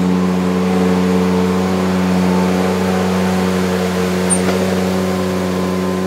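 Ventrac 4500 compact tractor running steadily while it pushes leaves with its V-blade, a constant even hum with no change in speed.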